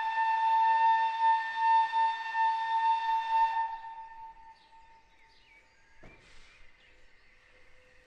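Steam locomotive whistle sounding one long blast that swoops up slightly at the start, holds steady for about three and a half seconds, then fades away.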